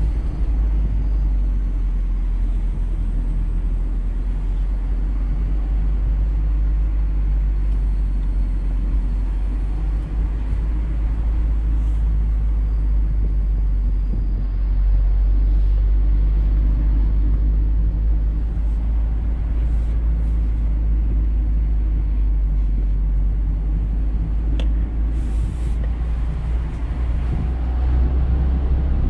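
Mazda MX-5 Miata's four-cylinder engine pulling at moderate revs, heard from the open cockpit with the top down over a heavy low rumble of road and wind. The engine note shifts with the throttle through the bends and gets a little louder about halfway through and again near the end.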